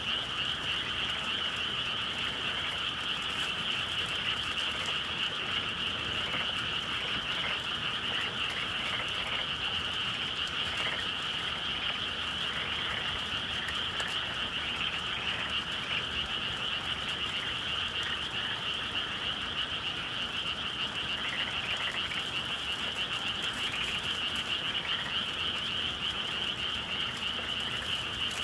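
Dense chorus of many frogs calling together in spring, a continuous high-pitched trilling mass with no pauses.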